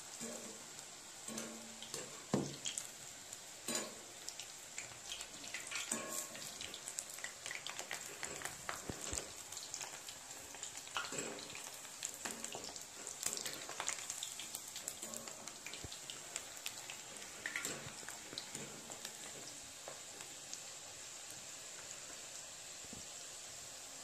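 Batter-coated potato pieces deep-frying in hot oil in a steel kadhai: a steady sizzle with scattered pops and clicks.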